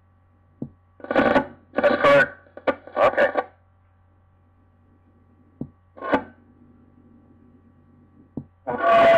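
Police-and-fire scanner radio picking up short, unintelligible bursts of transmission: a cluster about a second in, another midway and one near the end, each set off by sharp clicks, over a steady low hum from the tape.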